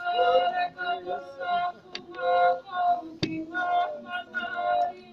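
A group of voices singing a song together in short, held phrases, with a sharp tap a little past three seconds in.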